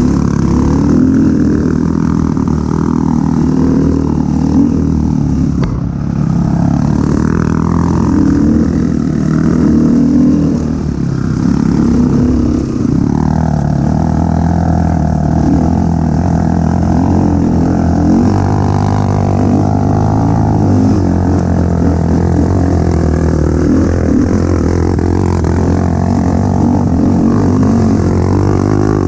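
KTM dirt bike engine running under way on a rough trail, its pitch rising and falling as the throttle is worked.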